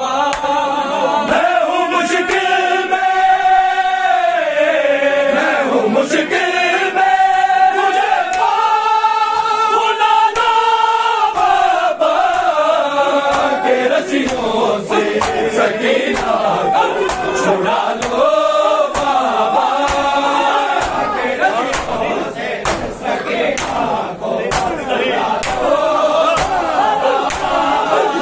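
A crowd of men chanting a noha, a Shia mourning lament, together, with sharp slaps of hands striking bare chests (matam) throughout.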